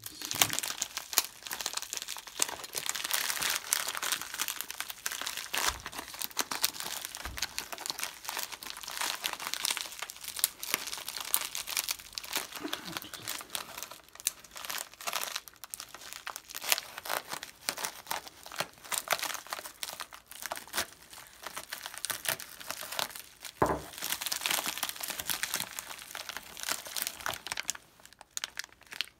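Continuous crinkling and crackling of a crumpled Priority Mail Express envelope being handled and opened by hand, with a few dull knocks. Near the end, clear plastic sleeves around the silver kilo bars rustle as a bar is drawn out.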